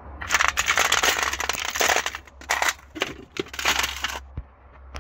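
Loose metal sockets and hand tools clattering and jangling in a metal toolbox drawer as a hand rummages through them. It comes in quick clusters and stops about four seconds in.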